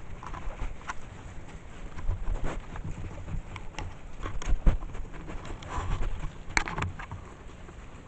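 Coatis right at the trail camera, nosing against it: irregular scratches, knocks and rustling in the leaf litter, with a sharper cluster of knocks about two-thirds of the way through.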